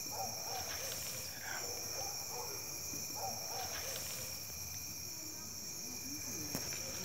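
Night chorus of crickets and cicadas: a steady high-pitched trill, with faint short calls repeating every second or so underneath.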